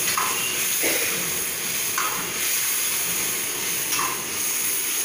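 Chilli chicken sauce sizzling steadily in a hot pan, the vinegar, soy sauce and chilli sauces just added to sautéed capsicum and onion, with a few brief stirring sounds.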